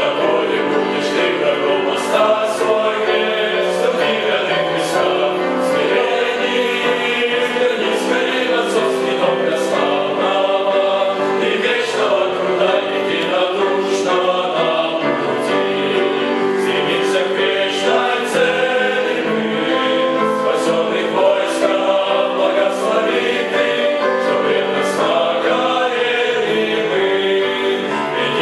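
Male vocal ensemble of young men singing a Russian Christian hymn in parts, voices held in sustained chords.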